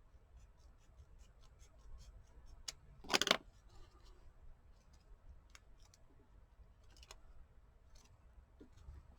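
Scissors snipping paper: a string of small, faint cuts, with one louder, half-second sound about three seconds in.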